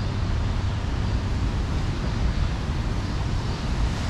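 Steady city street background noise: an even low rumble with a hiss over it and no distinct events.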